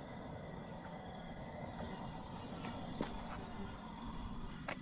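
Steady, high-pitched drone of insects calling without a break.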